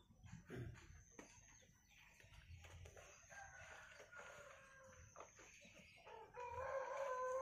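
Roosters crowing in the background, faint at first, with one longer crow starting about six seconds in that is louder than the rest. A few soft knocks from the bonsai pot being handled.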